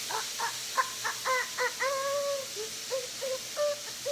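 A young child's high-pitched wordless vocalizing: a quick run of short repeated syllables, then a longer held note.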